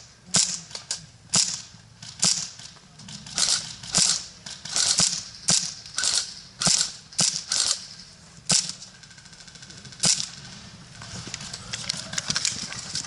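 Airsoft guns firing: about twenty sharp cracks in irregular single shots and quick pairs over ten seconds, then thinning to a few faint ones near the end.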